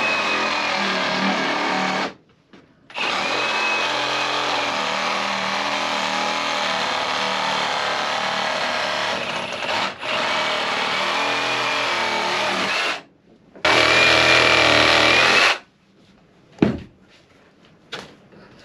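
Cordless drill-driver with a socket spinning nuts onto threaded-bar bolts through a timber frame, in three steady runs: a short one, a long one of about ten seconds, then another short one. A couple of sharp knocks follow near the end.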